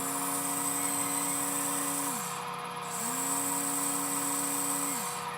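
A small electric motor running steadily with a high whine. A low tone in its sound bends down and drops out about two seconds in and again near the end, then comes back each time.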